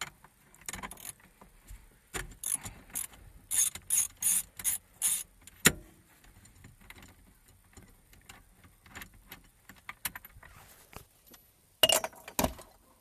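Socket ratchet on a long extension clicking in short repeated strokes as it unscrews the 19 mm steering-wheel nut. A sharp clack comes just before six seconds in, and two louder knocks near the end.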